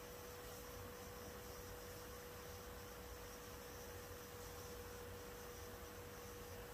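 Quiet room tone: a faint, steady hum held at one pitch over a low background hiss.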